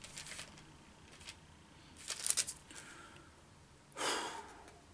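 Faint rustling of Bible pages being turned to look up a verse: a few short paper rustles, the loudest about four seconds in.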